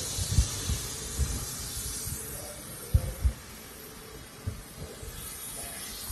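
Quiet street ambience: a motor scooter that has just passed rides away, its hiss fading over the first couple of seconds, with a few short low thumps, the loudest a pair about three seconds in.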